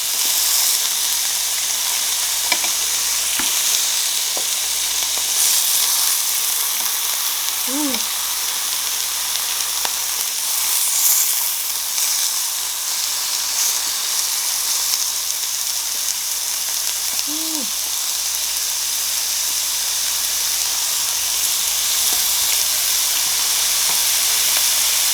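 Thin-sliced beef brisket sizzling steadily on a hot Korean BBQ grill, with a few light clicks.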